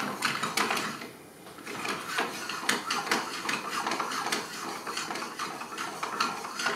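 Butter melting and crackling in a stainless steel skillet over a high gas flame, with the pan knocking and clinking on the burner grate as it is swirled: a quick, irregular run of small pops and clicks.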